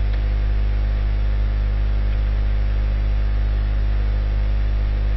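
Steady electrical hum picked up by the recording chain, a low buzz with several even overtones and faint hiss.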